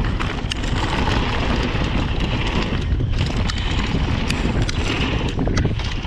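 Rocky Mountain Slayer mountain bike descending a trail: wind rushing over the action camera's microphone, with frequent sharp clicks and rattles from the bike over bumps.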